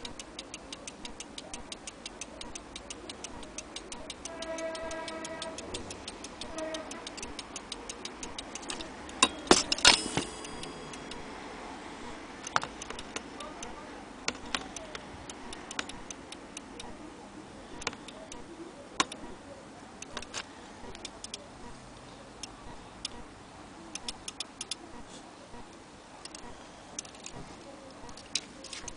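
Brass clock movement ticking steadily as its escapement runs, with metallic clinks from the movement being handled; the loudest is a sharp clink with brief ringing about ten seconds in.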